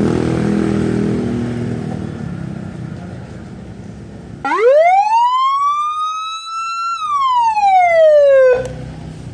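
About halfway through, a nine-tone police-escort siren sounds through a TOA ZH610S horn speaker, playing one wail. The tone rises steeply and levels off over about two and a half seconds, then glides down for about a second and a half and cuts off suddenly.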